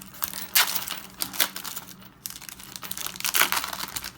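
Foil Pokémon booster pack wrappers crinkling as they are handled and torn open, in several short crackly bursts, the loudest near the end.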